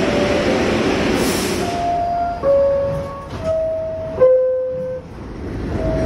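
New York City Subway R62A car's electronic door chime: a two-note falling chime sounded twice, each note held briefly, over a steady rumble and hiss. The chime is the warning that the doors are about to close.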